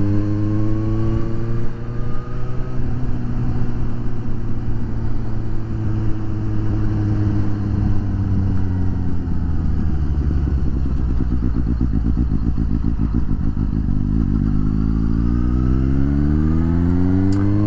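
Suzuki GSX-S750 inline-four motorcycle engine on the move. It climbs in revs and shifts up about two seconds in, then the revs fall away to a low, pulsing run. Near the end it picks up and climbs again.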